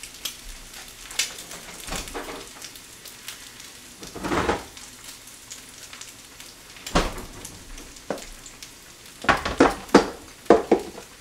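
A fried egg sizzling faintly and steadily in a nonstick pan, with small crackles, as it finishes cooking on the pan's residual heat. A couple of knocks midway, and near the end a quick run of clatter from a plastic food container being handled on the counter.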